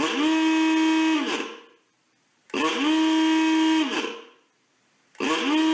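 A buzzing warning-alarm sound effect sounding three times, about every two and a half seconds. Each blast swoops up to a steady pitch, holds for over a second, then drops away.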